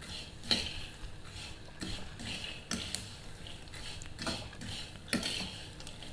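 Metal ladle scraping and knocking against a frying pan while stirring peanuts that are being roasted in only a little oil, a scrape or knock about every second.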